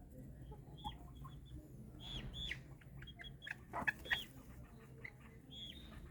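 White Silkie chickens clucking and peeping: many short high calls scattered throughout, the loudest two about four seconds in.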